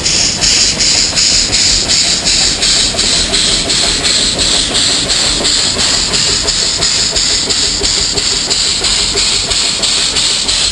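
Steam locomotive running under steam, its exhaust chuffing in a steady rhythm of about three beats a second over a loud hiss.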